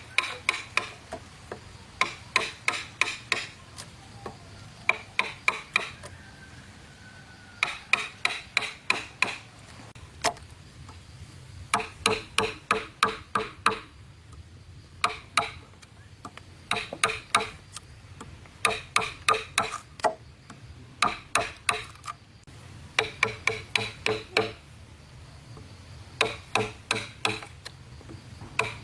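Hammer driving nails into wooden planks in quick runs of several blows, about four a second, with short pauses between runs; each blow rings with a metallic note.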